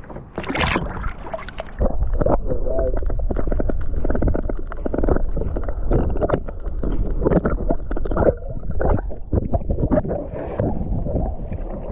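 Water splashing onto an action camera as it is plunged under the surface beside a kayak, about half a second in. It is followed by muffled underwater rushing and gurgling against the submerged camera housing.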